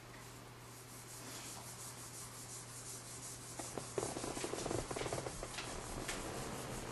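Handling noise from a handheld camera: hands rubbing and scraping against the body near the microphone, louder and denser from about four seconds in, over a low steady hum.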